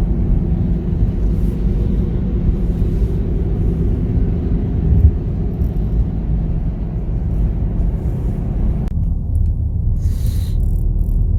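Car driving, with a steady low engine and road rumble. The upper range shifts abruptly about nine seconds in, as at an edit.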